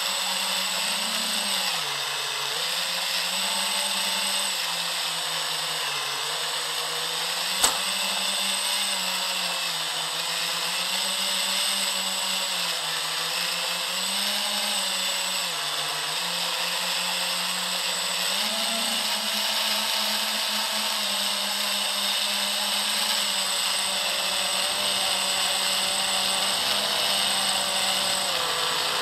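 FPV quadcopter's brushless motors and propellers whining, the pitch rising and falling with the throttle, as heard by the quad's own onboard camera. A single sharp click comes about eight seconds in.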